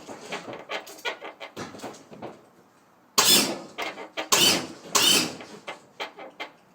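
Lowrider hydraulic system worked from the switches: a quick run of short hissing bursts, then three longer, louder bursts about a second apart, and a few short ones again near the end.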